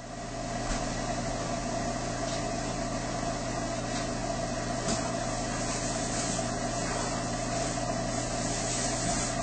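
Steady mechanical hum holding several unchanging tones, with a few faint ticks.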